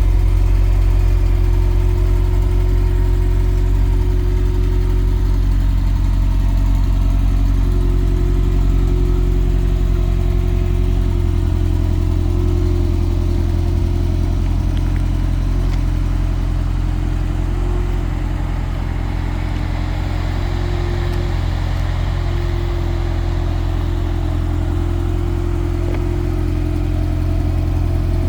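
The engine of a GTS Turbo car idling steadily, with an unexplained noise at idle that the owner wants to show. The level shifts slightly about two-thirds of the way in as the microphone moves around the car.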